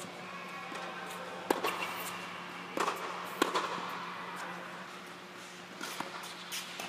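Tennis rally on an indoor hard court: several sharp, echoing pops of racket strings striking the ball and the ball bouncing, spaced a second or more apart, over a steady low hum.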